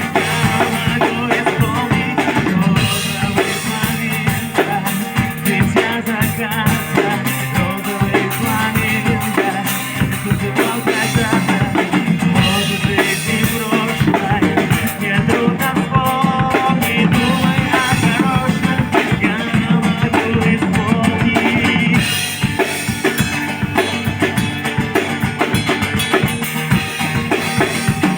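Live band playing an instrumental passage of a pop-rock song, with the drum kit prominent: bass drum, snare and rimshots under steady pitched instrument parts.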